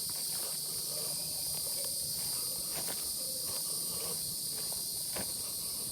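A steady, high-pitched chorus of insects, with a few soft footsteps.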